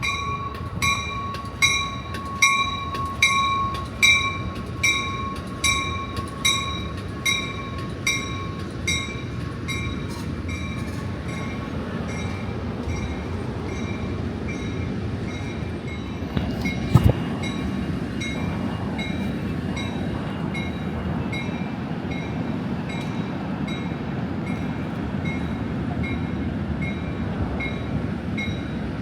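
A bell rings about once a second, loudest at first and then fading. A train's rumble builds and runs on, with a single sharp clank a little over halfway through.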